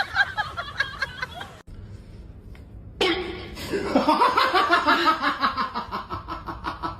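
A person laughing in quick, repeated bursts that run on for several seconds, starting a few seconds in.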